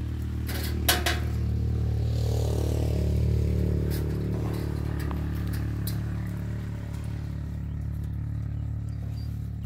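An engine running steadily at an even idle, with a couple of sharp knocks about a second in and a few fainter clicks of work later.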